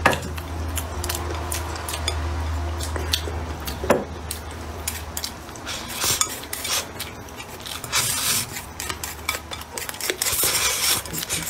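Wooden chopsticks clicking and scraping against a ceramic bowl as rice is shovelled from the rim into the mouth, with several short bursts of slurping and eating noises.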